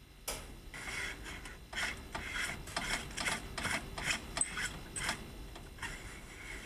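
A run of short scraping strokes, two or three a second and unevenly spaced, with two faint high chirps about two-thirds of the way through.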